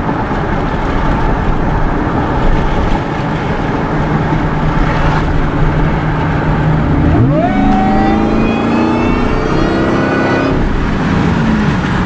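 Steady road noise from the 2002 SVT Lightning on the move. About seven seconds in, the supercharged 5.4-litre V8's note jumps up sharply and keeps climbing in a hard full-throttle pull, then drops away about ten and a half seconds in as the throttle is let off.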